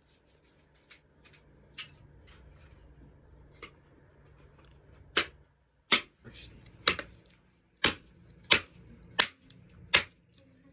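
Chopping with a blade: a few light taps, then seven sharp strikes a little under a second apart, heavier toward the end.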